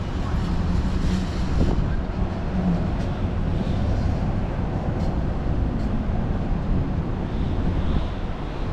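Small city tram arriving at its stop: a steady low rumble, with wind on the microphone.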